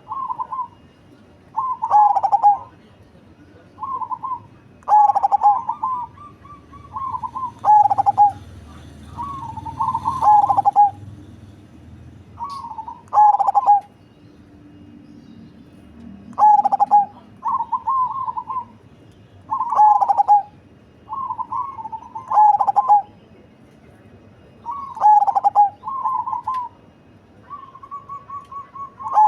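Zebra dove (perkutut) cooing its rolling, bubbling song, short phrases repeated every one to two seconds with brief pauses.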